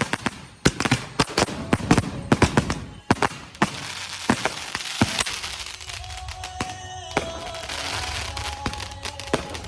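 Fireworks going off: a rapid series of sharp cracks and bangs for about the first five seconds, thinning into a steadier hissing crackle with occasional single bangs.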